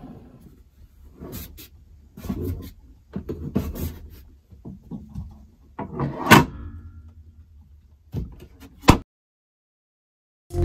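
Nature's Head composting toilet's agitator being turned by its spider handle to mix the compost, with irregular plastic clunks and scraping and a sharp knock about six seconds in and again near nine seconds.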